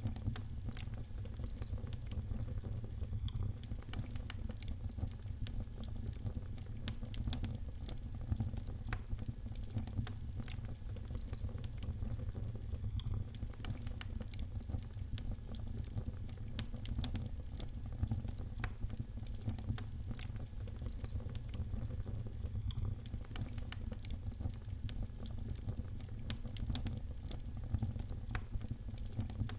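Wood fire in a fireplace crackling, with many small irregular pops over a steady low rumble.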